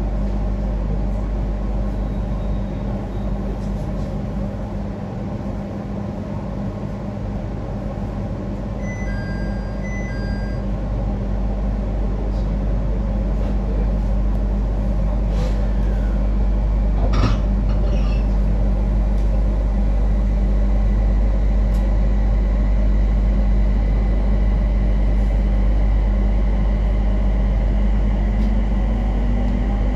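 JR East 701 series electric train running, heard inside the passenger car: a steady rumble of wheels on rail and running gear. It grows louder toward the middle, with a sharp click a little past halfway and a low tone rising near the end.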